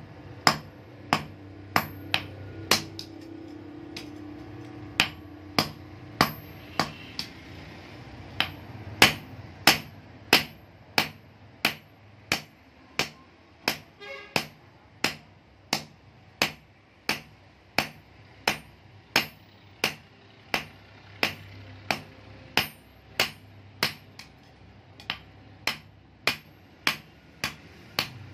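Hand hammer forging a red-hot steel knife blade on a block anvil, in a steady rhythm of about three blows every two seconds. Each blow is a sharp metallic clank, often with a short high ring. There is a brief pause in the blows about three seconds in.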